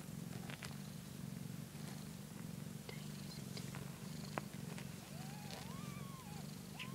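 Korat cat purring steadily, a fast rumbling purr with a few small clicks over it. From about five seconds in, a kitten gives thin, high mews that rise and fall.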